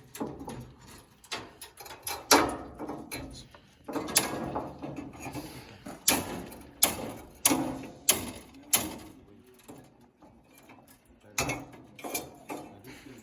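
Irregular knocks and clanks from hand work with tools and building materials, with a run of fairly evenly spaced strikes about two-thirds of a second apart in the middle.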